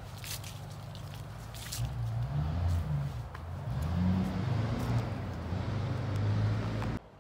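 Crackling rustle of dry fallen leaves underfoot, then a passing car's engine grows louder, its pitch wavering up and down. The sound cuts off abruptly near the end.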